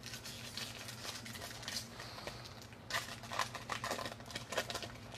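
Faint rustling and crackling of Ikoria trading-card booster packs and cards being handled, with quick clicks scattered through and more of them in the second half.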